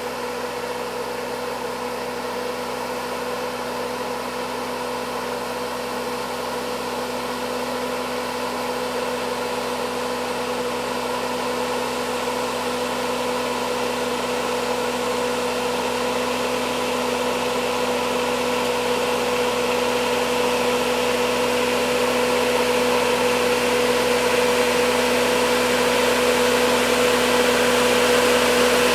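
Diesel engine of a multi-trailer road train running at a steady low speed through floodwater. It is a constant droning hum that grows gradually louder as the truck approaches.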